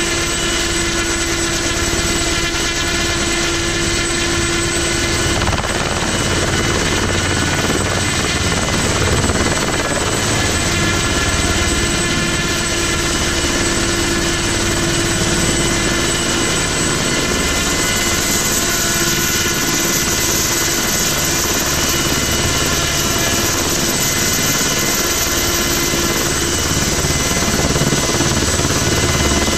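Ultrasport 496 single-seat light helicopter hovering low and close overhead, its engine and main rotor running steadily in a dense drone with many steady tones, a little louder near the end.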